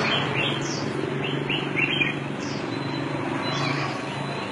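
A bird chirping: short high chirps that fall in pitch, repeated every second or two, with a few quicker chirps in the first two seconds, over a steady low hum.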